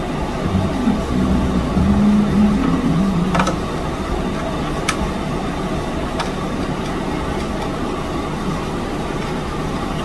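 Needle-nose pliers working a stuck RCA jack loose from the metal rear bracket: a few sharp metallic clicks, about 3.5, 5 and 6 seconds in, over a steady low rumble.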